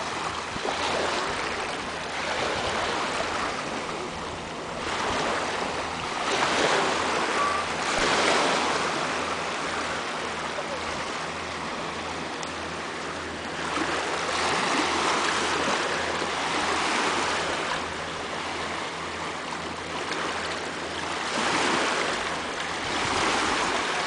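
Small lake waves lapping and washing onto a stony shore, each wash swelling and easing every few seconds.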